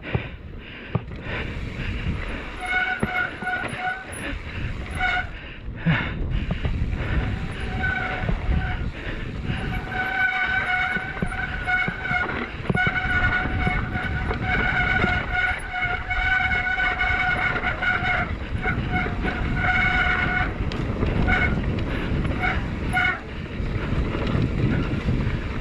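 Mountain bike ridden fast on a dirt singletrack: wind on the microphone, tyre rumble and rattles of the bike, with a steady high whine from the bike that comes and goes, the longest stretch from about ten to twenty seconds in.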